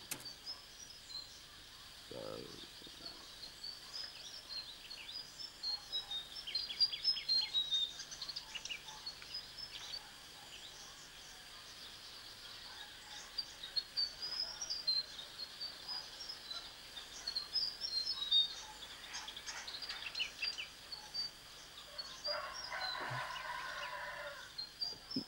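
Small birds chirping and twittering in quick, high calls, scattered throughout. Near the end a harsher, lower call lasts about two seconds.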